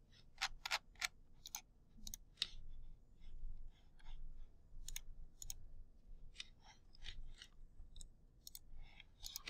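Faint, irregular clicking of computer controls as the slide deck is navigated, with sharper clicks in the first couple of seconds and softer ones after.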